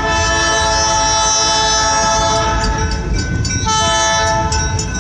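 Train horn sounding, several notes held together as a chord, over the low rumble of the moving train. The chord shifts about three and a half seconds in.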